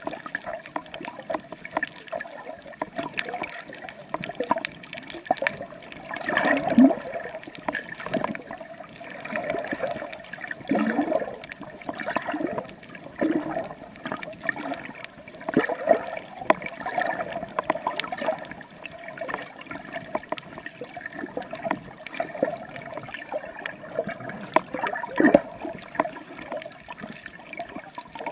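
Water sloshing and gurgling around a camera held underwater by a snorkeller, with irregular bubbly surges every few seconds and many light ticks.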